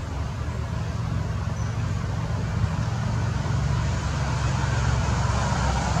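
Steady low rumble of outdoor background noise with a hiss above it, slowly growing louder.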